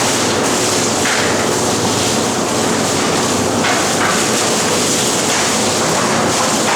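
Asahi Machine mackerel-filleting machine running, a loud, even mechanical noise with a faint steady hum.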